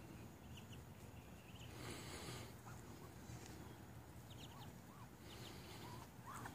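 Ducklings peeping faintly: scattered short, high chirps, a few more of them in the second half.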